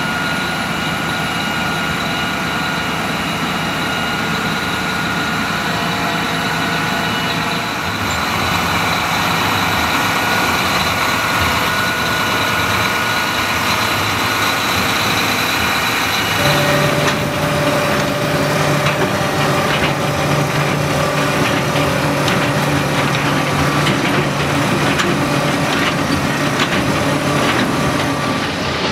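John Deere tractor's diesel engine running steadily while it pulls a Loewen Honey-Loader manure collector that scrapes up dairy manure. About halfway through, the sound changes as a second steady drone joins in.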